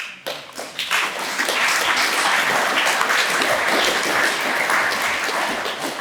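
Audience applauding: many people clapping, starting all at once, filling in over the first second and holding steady.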